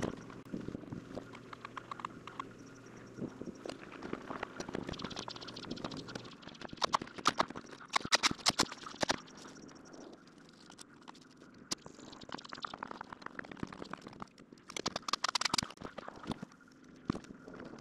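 Knocking and clattering on a plywood shed floor as 2x4 framing lumber is handled and worked, with two bursts of quick, sharp knocks, about seven seconds in and again near the end.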